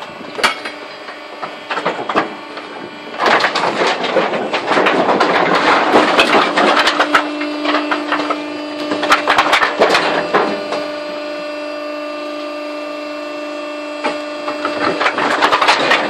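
Wood waste from a sawmill hopper falling and clattering into a truck bin: a dense rattle of many small knocks for several seconds from about three seconds in, picking up again near the end. A steady machine hum runs underneath in the second half.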